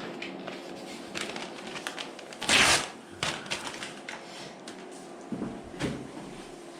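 Masking tape and masking paper being handled and pressed onto a scooter side panel: light crinkling, rustling and small clicks, with one louder short crinkle or rip about two and a half seconds in.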